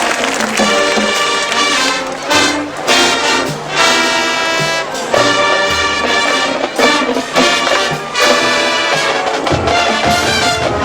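Marching band brass playing loud chords and short punched accents over a moving bass line.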